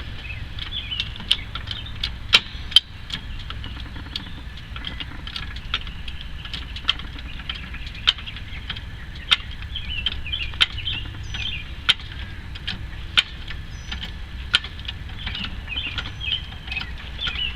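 Car jack being worked to lift a minivan, giving a sharp click about every second and a quarter.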